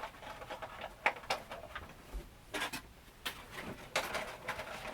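A Funko Pop's cardboard box and plastic window being handled: a scattering of short crinkles, taps and rustles.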